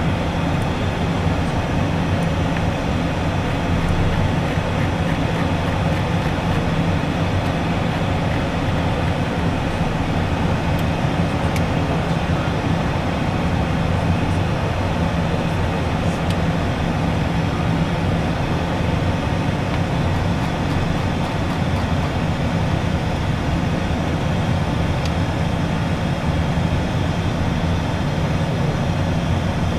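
Steady cockpit noise inside an Embraer Phenom 100 light jet on approach: a constant rush of air with a low, even hum from its twin turbofan engines.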